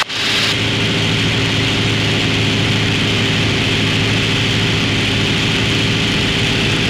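Piper Cherokee's piston engine and propeller droning steadily in flight, heard from inside the pilot's headset ear cup.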